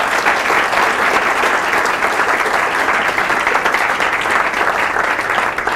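Audience applauding, the dense, steady clapping of many hands, thinning slightly near the end.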